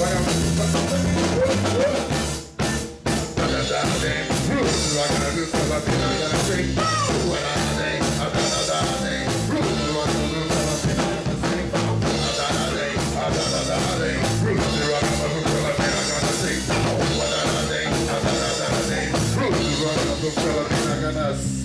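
Live funk and afrobeat band playing an instrumental passage: a drum kit with rimshots, snare and bass drum over bass and other instruments, with a short break about two and a half seconds in.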